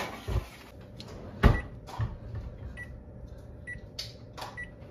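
A metal baking sheet slides into an oven and the oven door shuts with a thump, the loudest knock about a second and a half in. Then a handful of short, high beeps come from the oven's keypad as the cooking timer is set.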